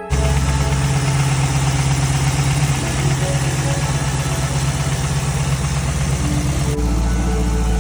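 Car engine idling with a fast, even ticking from the valvetrain, the lifter tick of a sticking or noisy hydraulic lifter. The low rumble gets abruptly louder near the end.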